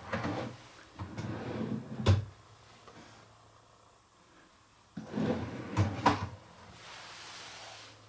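A dovetailed drawer run along its newly mounted drawer slides twice, each run ending in a sharp knock, about two seconds in and again about six seconds in.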